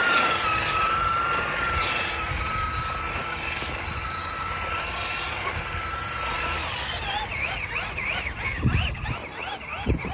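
Electric motor of a Traxxas Rustler RC truck whining at a high, steady pitch while it spins donuts in snow. About two-thirds of the way through the pitch drops, and the whine wavers up and down as the throttle is worked on and off.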